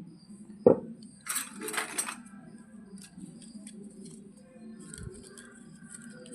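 Miniature plastic toy kitchen pieces being handled: a sharp tap under a second in, a short rustle, then light clicks and clinks.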